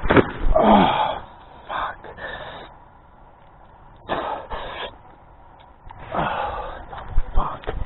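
A person's breathy vocal sounds, not words: about five short gasps and sighs with quiet gaps between, some falling in pitch.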